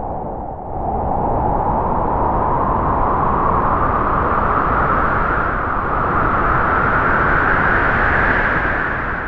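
A Halloween horror sound effect: a long, loud, noisy rushing sound that starts suddenly. Its pitch rises slowly over several seconds, and it begins to fade near the end.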